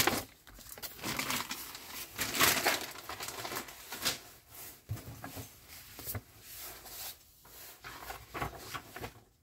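Intermittent rustling and a few light knocks from hands handling packaging on a tabletop.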